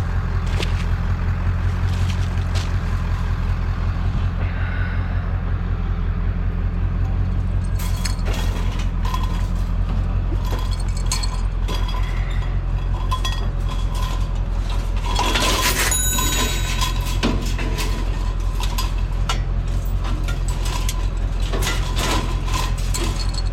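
A vehicle engine idling with a steady, pulsing rumble. From about a third of the way in, scrap metal clinks and rattles as it is handled, with one ringing metallic strike about two-thirds through.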